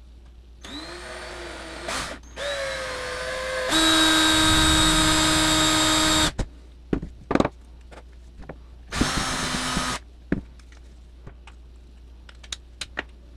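Cordless drill boring a hole through a plastic spring clamp, the motor started and stopped in several runs: two short runs with the pitch rising as it spins up, a longer loud steady run from about four to six seconds in, and a brief burst near ten seconds. Light clicks and taps of handling the clamp follow.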